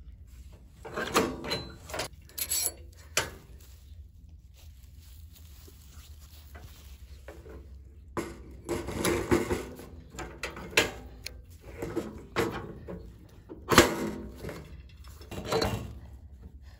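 Knocks, clunks and scrapes of a go-kart wheel being handled, slid off and back onto its front spindle, a series of separate knocks with quieter gaps between.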